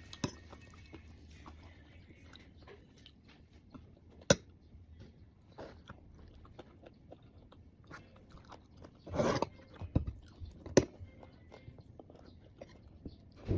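Close-up biting and chewing of mango slices with shrimp paste, with crunching mouth sounds. Scattered short clicks, the loudest a sharp one about four seconds in, a louder noisy stretch around nine seconds and two more sharp clicks soon after.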